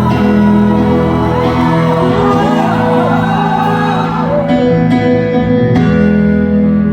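Live pop ballad performed through a concert sound system: sustained keyboard chords, with wavering voices of a whooping audience rising over the music in the middle.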